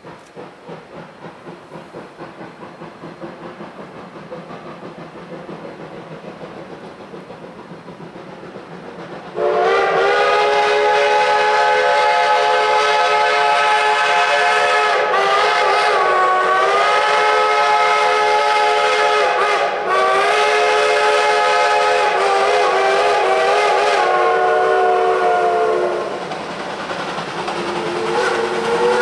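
Shay geared steam locomotives working a triple-header approach with steady exhaust chuffing that grows louder. About a third of the way in a loud chime steam whistle sounds one long blast of several notes with a couple of brief dips. It stops a few seconds before the end, and another whistle blast starts just before the end.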